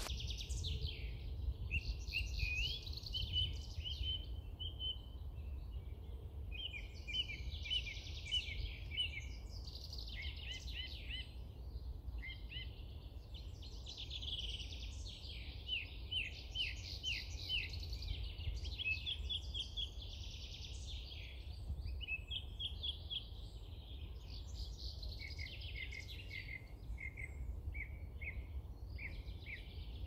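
Songbirds singing without a break: varied phrases in which short notes are repeated several times over, above a steady low rumble.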